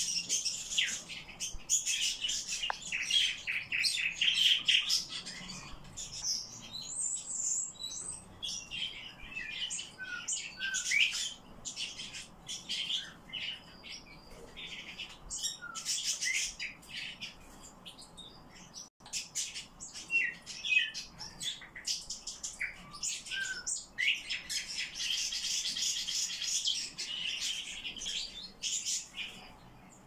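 Nightingales singing: phrases of fast repeated notes, trills and whistles, fullest at the start and again near the end, with scattered shorter notes between.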